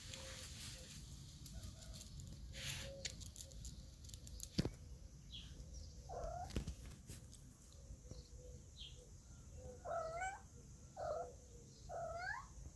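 Cats giving short meowing cries, one about halfway through and three in quick succession near the end, the last rising in pitch.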